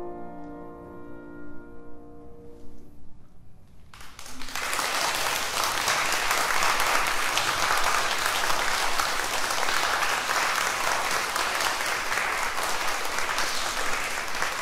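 The final chord of clarinet and piano ringing out and fading away, then an audience applauding, starting about four seconds in and carrying on steadily.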